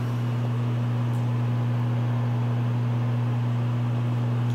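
A steady low electrical hum with a faint hiss over it, unchanging in pitch and level.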